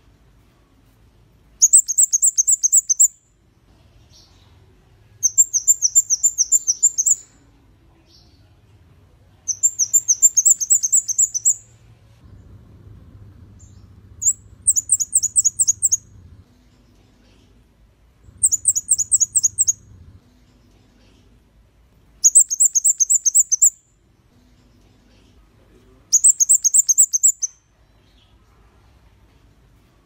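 Red-headed flowerpecker (kemade kepala merah) singing: seven bursts of rapid, thin, high ticking notes, each burst about a second and a half long, repeated roughly every four seconds.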